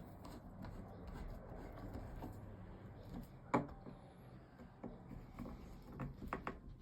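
Faint scattered clicks and knocks of parts and a screwdriver being handled while a car's dashboard light switch is fitted, with a sharper click about three and a half seconds in and a few more near the end.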